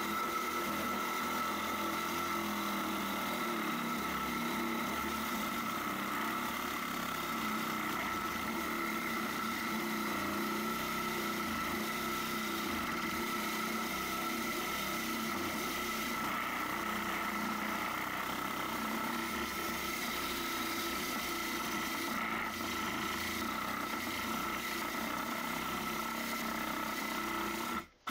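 Milwaukee 12-volt compact reciprocating saw with a wood-cutting blade, running steadily as it cuts through wood paneling. The motor keeps a steady whine and stops at the end.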